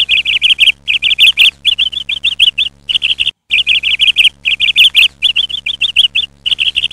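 Small birds chirping in quick, loud runs of chirps, a cartoon sound effect of frightened fledglings, with a brief break a little after three seconds.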